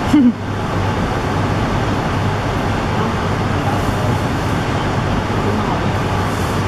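Steady ambient background noise, an even hiss and rumble, with one short loud sound just after the start.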